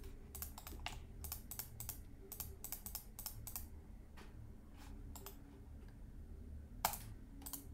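Computer keyboard and mouse clicking: a quick run of clicks for the first few seconds, then scattered single clicks, with one louder click near the end.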